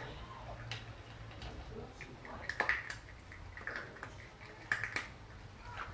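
Two puppies eating dry kibble from a plastic bowl: scattered crunching and sharp clicks of food and bowl, the loudest a pair about two and a half seconds in and another pair near the end.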